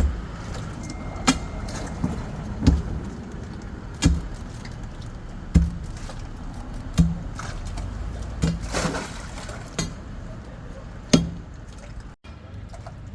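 Repeated heavy blows, about one every second and a half, over a steady low rumble.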